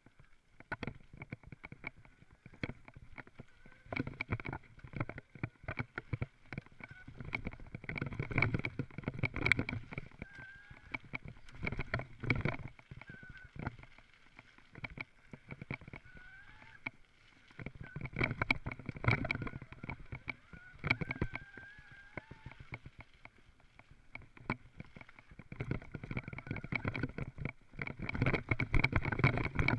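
Mountain bike rattling and clattering over rough forest singletrack, a dense run of knocks and jolts through the frame and handlebars. It comes in waves, loudest over the bumpier stretches.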